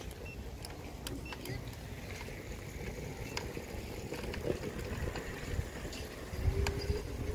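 Electric scooter in motion: low rumble of its wheels on the paths, with scattered rattling clicks and a faint steady motor whine that rises slightly near the end. Wind buffets the microphone towards the end.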